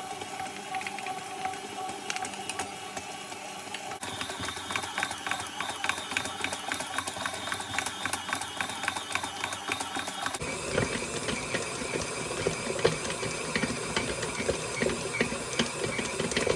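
Electric mixer running steadily, kneading a yeast dough, with a whirring motor and a fast rhythmic ticking. The sound shifts abruptly about four seconds in and again about ten seconds in.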